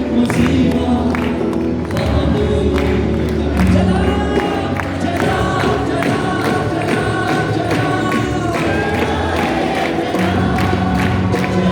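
Live worship music with a band and a sung vocal line, a steady beat, and the congregation singing along.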